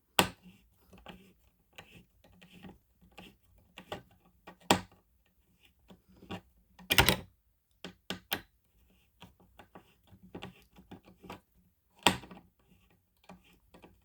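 Screwdriver tightening a mounting screw on a plastic fire alarm device: irregular small clicks and taps, with a few sharper knocks.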